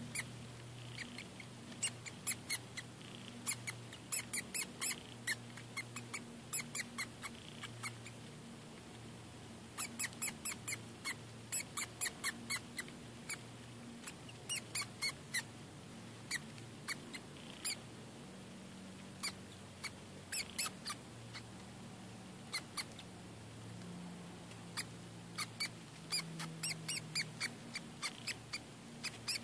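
Mouse squeaking as a grass snake swallows it: short, high-pitched squeaks in quick runs of several at a time, repeated on and off.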